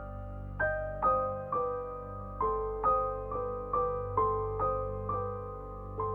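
Background music: a slow, gentle keyboard melody of single struck notes, about two a second, each ringing and fading, over a steady low sustained tone.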